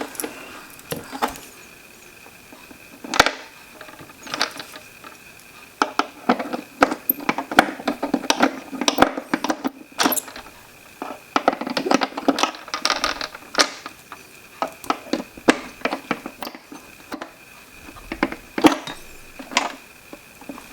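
Plastic parts of a humidifier's housing clicking, knocking and rattling as it is put back together by hand. The clicks come singly at first, then in dense clusters of handling noise in the middle.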